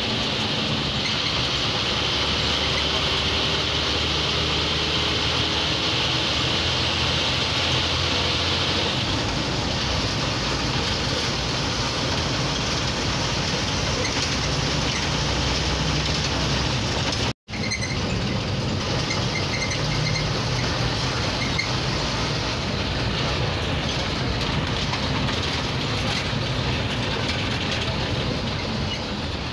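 MSRTC bus's diesel engine running steadily under way, heard from inside the driver's cabin along with road noise. The sound cuts out for a split second a little past halfway.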